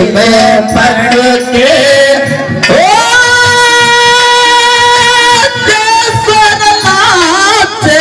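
Male folk singer singing a Haryanvi ragni into a microphone over music accompaniment. About three seconds in his voice glides up into a long held high note, which breaks into quick wavering ornaments near the end.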